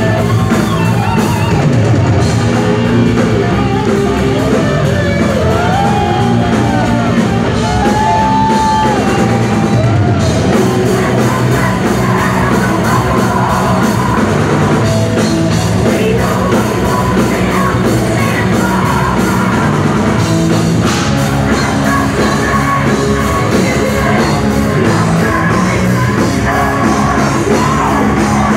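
Live power metal band playing loud: distorted electric guitars, a drum kit and singing, heard through the club PA and recorded from the crowd.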